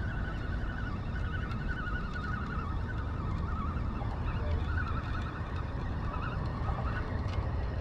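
Spinning reel being cranked on a line retrieve, a wavering, warbling whir, over a steady rumble of wind on the microphone.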